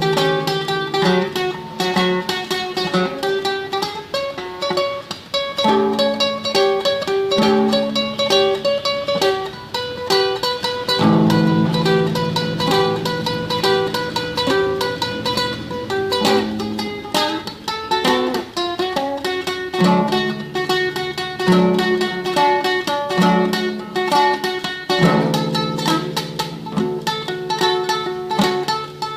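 Classical guitar playing a fast tremolo melody of rapidly repeated plucked notes over a moving bass line.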